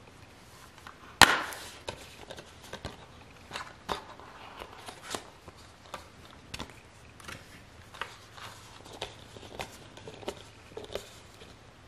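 A plastic Blu-ray case is handled and opened. About a second in there is one sharp, loud snap, like the case's latch coming open. After it come many small, irregular clicks and taps as the case, the paper insert and the disc hubs are handled.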